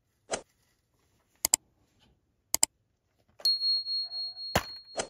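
Metal steelbook case being handled and opened: a single sharp click, then two quick double clicks about a second apart. About three and a half seconds in comes some handling noise with a steady high-pitched tone lasting about two seconds, broken by two more clicks.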